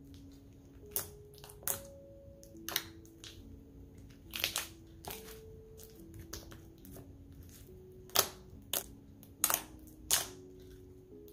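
Glossy slime being squeezed and poked by hand, giving sharp clicking pops at irregular intervals, about ten in all. Quiet background music of single held notes plays underneath.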